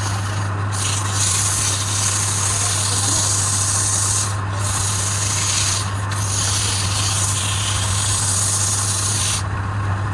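A wood lathe runs with a steady hum while an abrasive is held against the spinning workpiece, making a hissing rub. The rub starts about a second in, lifts off briefly twice, and stops just before the end.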